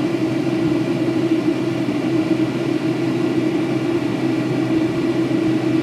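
Steady in-flight cabin noise of a Boeing 757-200 heard from inside the passenger cabin: the engines' constant drone with a rush of airflow, holding an even level with no change in pitch.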